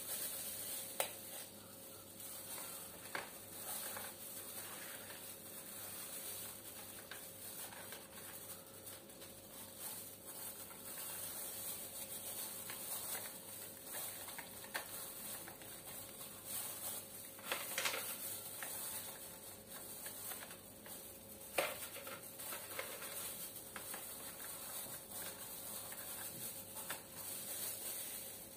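Graham crackers being set into a plastic container by hands in plastic food gloves: soft crinkling and scattered light clicks, a few sharper ones, over a steady hiss.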